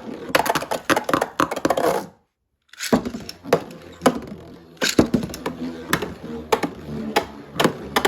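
Metal Fusion Beyblade tops spinning with a steady whirr in a plastic stadium, clacking against each other and the walls in rapid, irregular knocks. The sound cuts out completely for under a second a little after two seconds in, then the spinning and clashing carry on.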